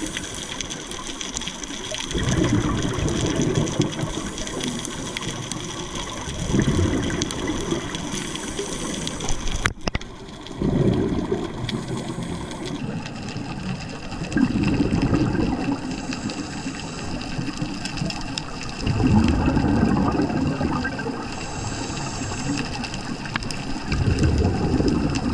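Scuba diver breathing through a regulator underwater: a burst of bubbling exhaled air about every four to five seconds, over a steady underwater hiss with thin high tones.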